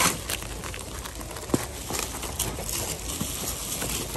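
Items being handled during unboxing: packaging rustling and crackling, with a few sharp knocks, the sharpest about a second and a half in.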